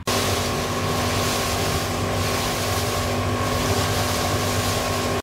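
Motorboat running under way: a steady engine drone with a constant whine over it and wind on the microphone. It cuts in and cuts off abruptly.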